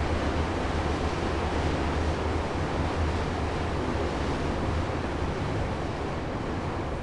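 81-717.5 metro car running through a tunnel, heard from inside the car: a steady loud roar of wheels and running gear over a deep low hum, getting slightly quieter near the end.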